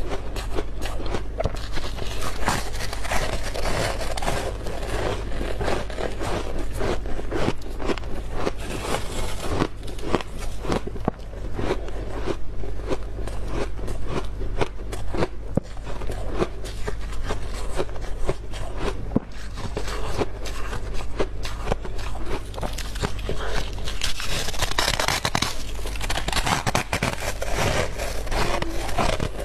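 Close-up crunching and scraping of freezer frost: a fast, irregular stream of crisp crunches, over a steady low hum.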